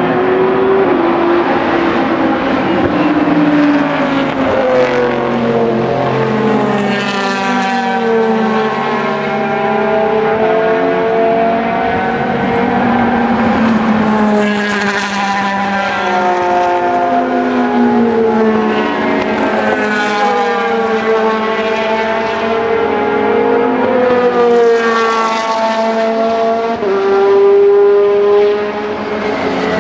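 Endurance race cars, Le Mans prototypes and GT cars, driving past one after another at racing speed. Their engine notes overlap continuously and rise and fall in pitch as each car approaches and goes by, with a close pass every few seconds.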